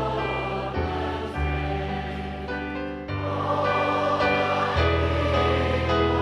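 A choir singing a hymn over sustained bass notes, the chords changing about once a second, growing fuller a few seconds in.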